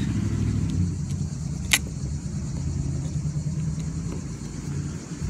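An engine running steadily at a low, even pitch, with one sharp click a little under two seconds in.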